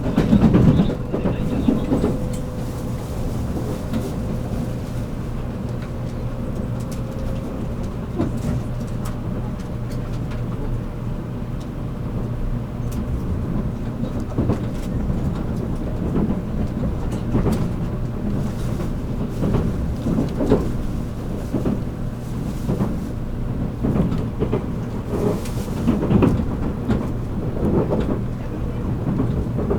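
Running noise inside a JR Kyushu 783 series electric motor car at speed: a steady low rumble and hum, with irregular knocks as the wheels pass over rail joints. A faint steady tone fades out about eight seconds in.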